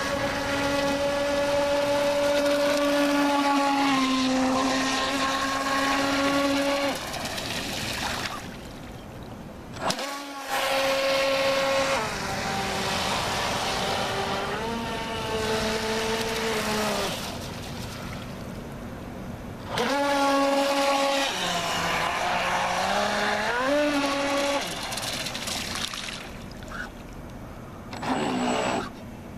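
Pro Boat Shockwave 26 RC speedboat's brushless electric motor whining at speed, with water hiss from the hull. The pitch drops and climbs again several times as the throttle is eased and reopened, and the whine fades out twice.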